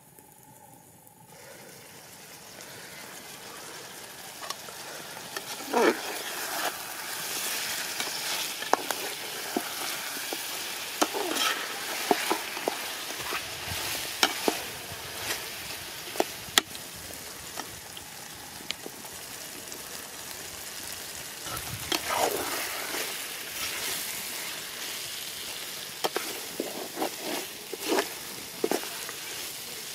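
Metal ladle stirring chicken curry in an aluminium pot over a wood fire, with the ladle scraping and knocking against the pot over a steady sizzling hiss from the hot curry. The hiss swells over the first few seconds as the lid comes off.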